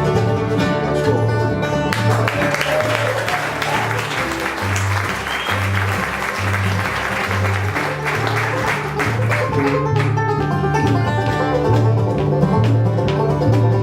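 Live bluegrass band playing an instrumental break on banjo, mandolin, guitar and bass, with a steady bass line underneath. Audience applause rises over the music about two seconds in and fades out about ten seconds in.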